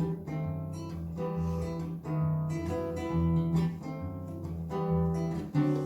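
Acoustic guitar playing an instrumental passage of strummed chords between the sung verses of a bard-style song.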